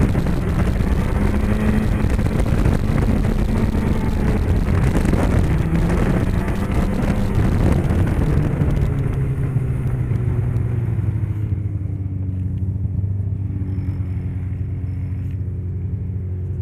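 2010 Polaris Rush 600 Pro-R snowmobile's two-stroke twin engine running on the trail, its pitch rising and falling with the throttle. About eight seconds in it backs off: the pitch drops and settles to a steady lower note, and the rushing noise of the ride fades as the sled slows.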